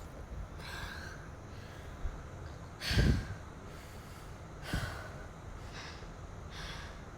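A young woman coughing: one strong cough about three seconds in and a smaller one nearly two seconds later, with short breaths and sniffs around them.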